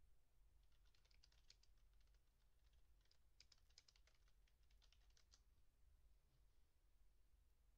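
Faint computer keyboard typing in two short runs of quick clicks, one about a second in and a longer one from about three to five seconds, over near silence.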